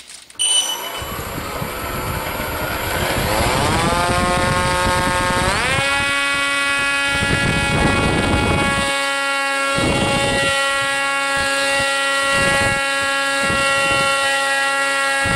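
RC model plane's motor and propeller spinning up from low throttle, rising steadily in pitch for about five seconds, then holding a steady high whine at full throttle. Bursts of rushing noise come and go over the steady whine in the second half.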